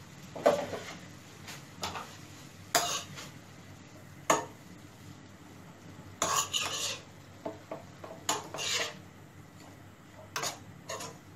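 A spatula scraping and knocking against a frying pan while stir-frying chopped greens, in separate short strokes every second or so, with a quick cluster of several strokes just past the middle.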